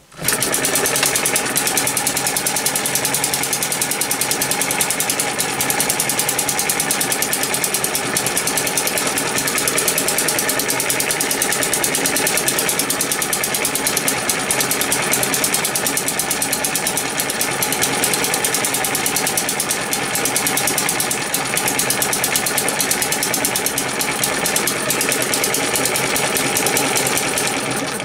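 Eachine ET1 (M90) model hit-and-miss gas engine running steadily with a fast, even run of strokes while it belt-drives a 12 volt DC motor used as a generator to light an LED bulb. It starts abruptly just after the beginning and cuts off near the end.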